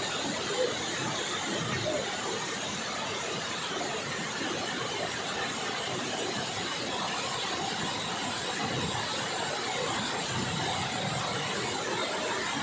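Hundru Falls' water on the Subarnarekha River rushing down the falls: a steady, even roar of falling water.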